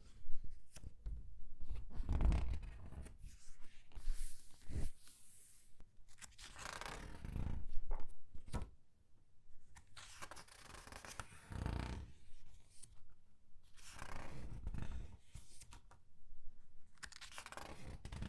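Pages of a thin newsprint comic book being turned one after another, each turn a papery swish, with the paper squeezed and crinkled in the hand; a new turn comes about every two to three seconds.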